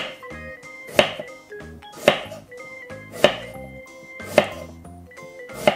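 Large carbon-steel Opinel folding knife chopping through food and knocking on a cutting board: six sharp knocks about a second apart, over background music.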